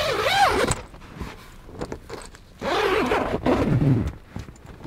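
Zipper on a fabric camper window being pulled open in two strokes, the first right at the start and a longer one about two and a half seconds in, with small clicks and rustling between.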